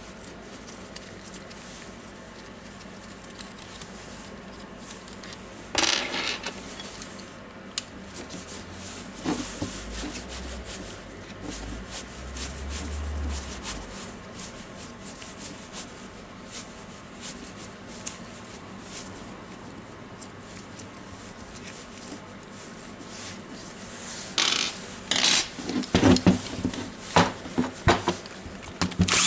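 Parts of a Makita DTW1002 cordless impact wrench being handled during disassembly: plastic housing and small metal parts rubbing, scraping and clinking. There is a louder scrape about six seconds in and a run of loud clattering near the end.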